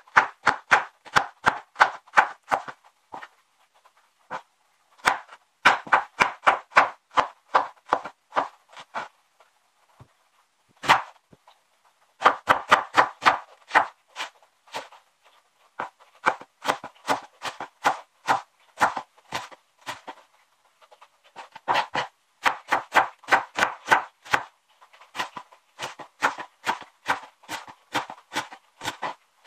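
Kitchen knife chopping garlic and then onion on a wooden cutting board: quick runs of knife strikes, about four a second, with short pauses between the runs.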